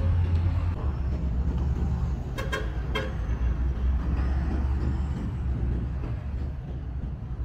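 Road traffic with a nearby vehicle engine running, a steady low hum throughout. A vehicle horn gives two short toots about two and a half seconds in.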